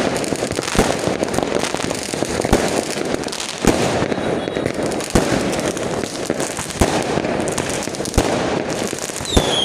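Aerial fireworks going off: dense, continuous crackling with sharp bangs about every one to one and a half seconds. Just before the end a falling whistle starts.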